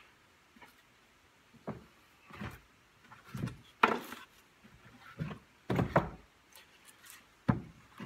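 Cut OSB boards with box-joint edges knocking and clattering against each other and the workbench as they are handled and fitted together. The knocks come irregularly, about nine of them, with louder clacks near the middle.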